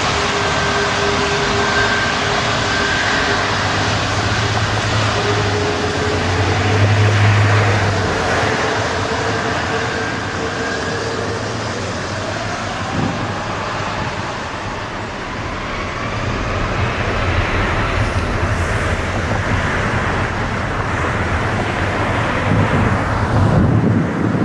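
Jet engines of a four-engine Airbus A340 running at taxi power: a steady whine over a low rumble as the airliner rolls past, with a tone that rises slowly partway through.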